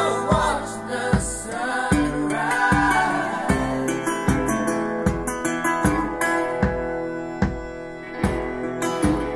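A song with singing, guitar and a steady bass-drum beat, a little over one beat a second, playing through Marten Duke hi-fi loudspeakers.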